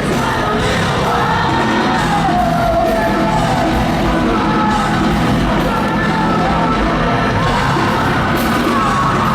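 Post-hardcore rock band playing live and loud, with a lead vocal sung and partly yelled over the band, in a large concert hall.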